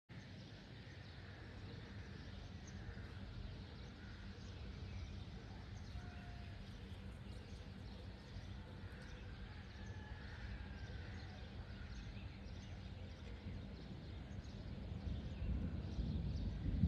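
Outdoor ambience: a steady low rumbling noise with a few faint bird calls. The low rumble swells louder near the end.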